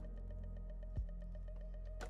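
Quiet background music: sustained tones over a steady light beat, with one soft low thump about a second in.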